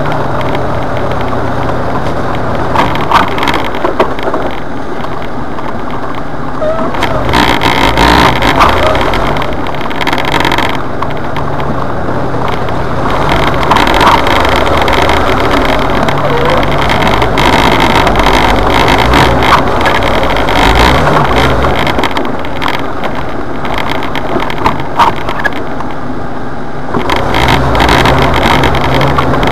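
Jeep running as it drives over a muddy, rutted trail, heard from inside the cab, with frequent knocks and rattles from the rough ground.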